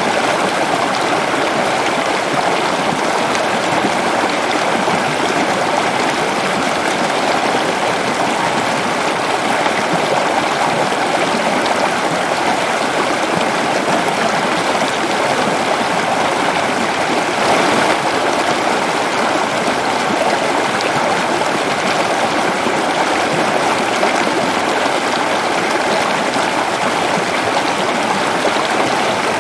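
Waterfall rushing steadily, a continuous even wash of falling water with a slight brief swell about 17 seconds in.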